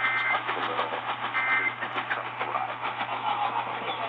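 EAS end-of-message data bursts over a radio: short two-tone warbling bursts of digital data, one at the start and another about a second and a half later, buried in steady radio static with a low hum.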